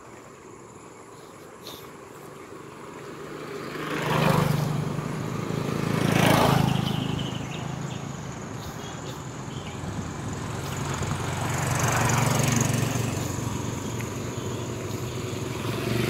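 Motor vehicles passing on a road: their engines hum up and fade as each goes by, three times, about four, six and twelve seconds in.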